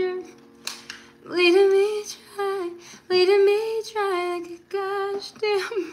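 A woman singing a melody in short phrases, with a low held accompaniment note under the first half.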